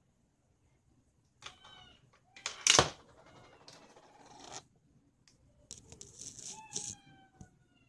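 A coin being inserted into a coin slot's coin acceptor: irregular metallic clicks and clatter, the loudest a sharp click about three seconds in, with a few short ringing tones that fall slightly in pitch.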